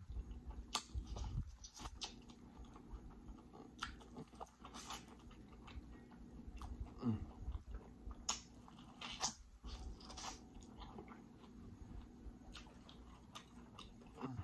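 Close-miked eating of sauce-covered corn on the cob: bites and chewing, heard as irregular short mouth clicks and smacks.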